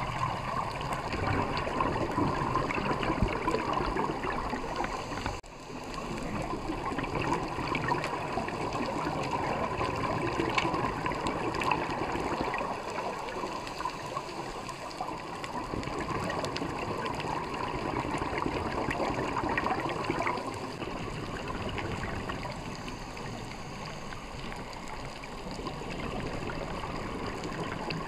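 Scuba divers' exhaled bubbles gurgling and hissing underwater, rising and falling in slow swells, with a brief break about five seconds in.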